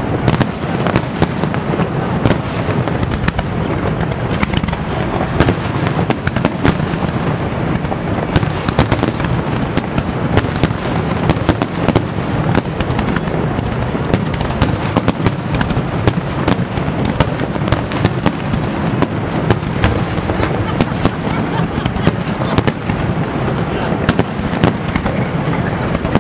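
Aerial fireworks display: shells bursting and crackling without a break, many sharp bangs a second.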